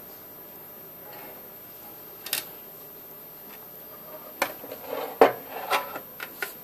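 Rusty old electric hot plate being handled and turned over, its metal body and burner plate knocking and clattering: one knock about two seconds in, then a quick run of knocks and rattles toward the end.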